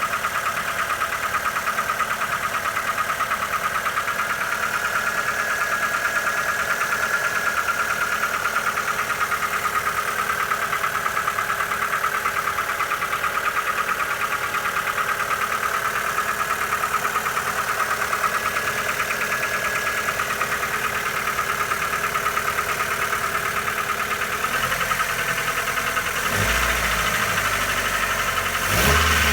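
Mitsubishi Lancer 9 1.6 engine idling with a rapid, steady knock, the engine knock the car has developed. A low rumble comes up in the last few seconds, with a sharp thump just before the end.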